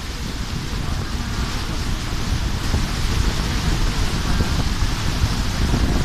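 Wind buffeting the microphone of a camera aboard a moving boat: a steady, fluttering rumble with a broad hiss over it, growing a little louder about halfway through.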